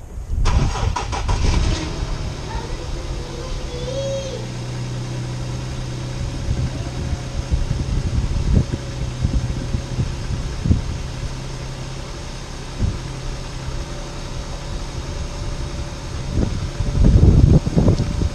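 2012 Infiniti G37x's V6 engine starting about half a second in, with a rapid stretch of cranking, then idling steadily. A louder low rumble rises briefly near the end.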